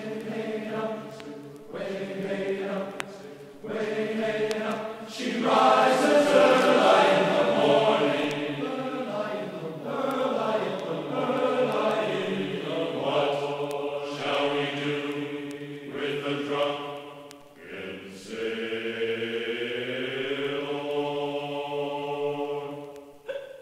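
Slow vocal chant as background music, with long sung notes held for several seconds each.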